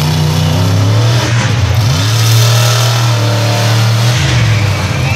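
Monster truck engine revving loudly: the pitch climbs about two seconds in, holds, then drops away a little after four seconds.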